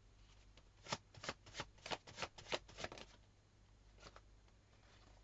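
A deck of tarot cards being shuffled: a quick run of crisp card snaps for about two seconds, then one more snap near the end.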